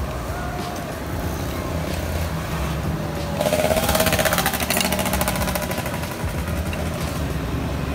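Road traffic with a steady low rumble; a small motorbike engine passes close by about three and a half seconds in, loudest for about two seconds before fading back into the rumble.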